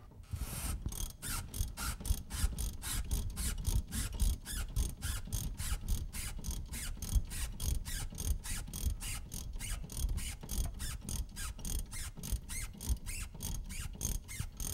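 Ratchet wrench clicking steadily, about four to five clicks a second, as it undoes the bottom nut of a rear sway bar end link.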